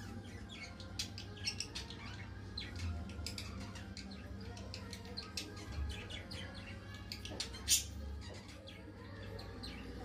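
Cockatiels chirping quietly while their beaks pick kernels off a corn cob, with many small sharp clicks; one louder click near the end.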